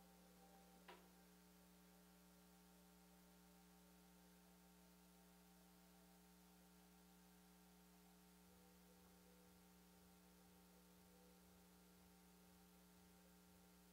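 Near silence: a faint steady hum, with one faint click about a second in.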